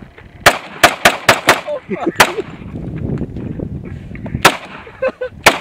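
Eight gunshots aimed at a plywood target: six fired in quick succession in under two seconds, then two more about a second apart near the end. Wind rumbles on the microphone between the shots.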